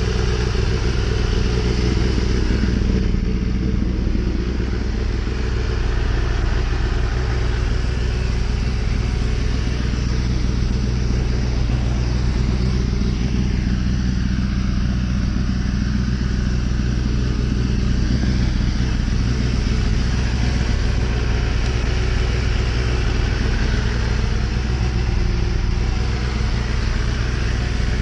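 Kawasaki ZX-10 sport bike's inline-four engine idling steadily.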